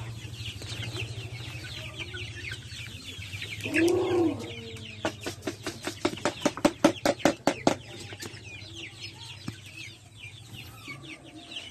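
A flock of young Rhode Island Red chickens peeping with short, high, falling chirps and clucking, with one louder squawk about four seconds in. Between about five and eight seconds a quick run of sharp knocks, about five a second, is the loudest sound.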